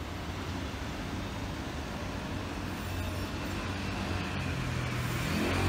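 Road traffic on a busy city street, a steady rumble and hiss of passing vehicles. A low engine hum, such as a bus's, grows louder about four seconds in.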